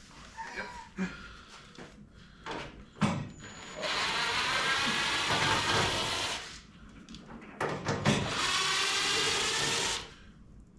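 Cordless screw gun running in two stretches of about two to three seconds each, backing screws out of the truck's front end, with a few knocks of tool on metal before the first run.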